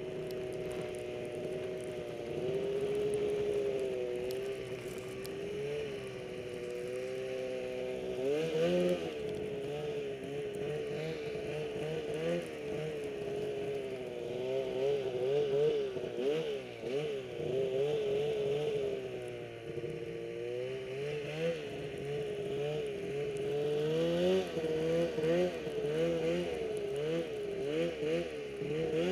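Snowmobile engine running while pulling through deep powder. Its pitch holds fairly steady for the first several seconds, then rises and falls over and over as the throttle is worked.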